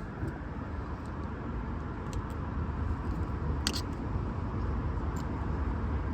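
Steady low background rumble with a few faint, light clicks spread through it.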